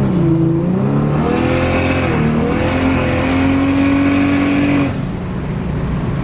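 Car engine accelerating hard, its note climbing, dipping briefly about two seconds in and climbing again, then held high until it drops back about five seconds in.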